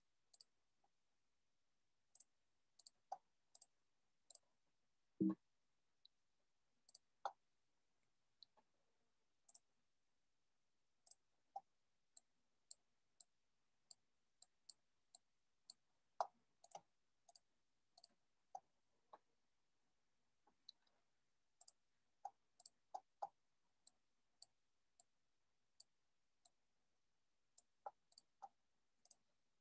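Faint, irregular clicks of computer keyboard typing and mouse clicks, roughly one or two a second, with one soft thump about five seconds in.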